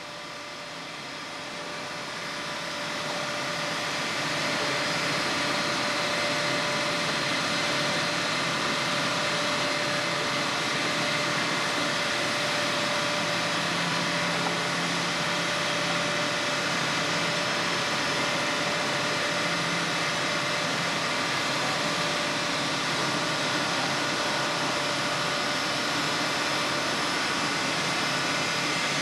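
Pallet mill machinery running steadily, a continuous drone with several steady whining tones.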